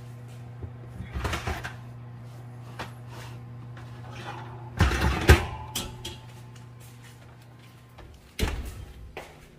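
A metal baking pan scraping out along the oven's wire rack, with a louder metallic clatter about five seconds in, then the oven door swung shut with a thud near the end. A low steady hum underneath stops just before the door closes.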